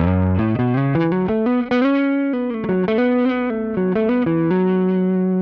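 Dingwall ABZ six-string electric bass played through a Source Audio Aftershock overdrive, dry with no echo: a melodic run of single notes starting low and moving higher, stopping abruptly at the end.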